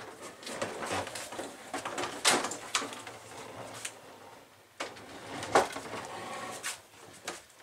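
Irregular bumps, knocks and scraping as a refrigerator is worked through an RV's entry door, with two sharp knocks about two and five and a half seconds in.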